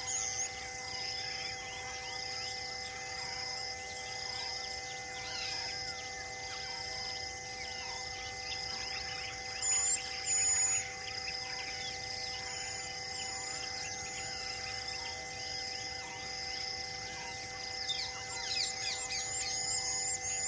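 Wild birds calling and chirping over a grassland, with one high note repeating about once a second. Two loud high whistles come about ten seconds in, and a quick run of high chirps starts near the end.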